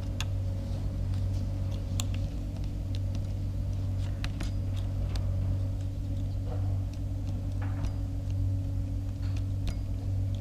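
Steady low hum, with a few light, sharp metallic clicks and taps scattered through it as small screws and parts are worked loose from a hedge trimmer's gearbox housing.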